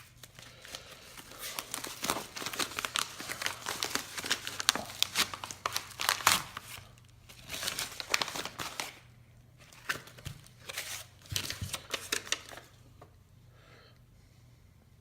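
A mailed package being opened by hand: packing material and tape tearing and crinkling in rapid, crackly bursts for most of ten seconds, then a few shorter rustles that trail off about two seconds before the end.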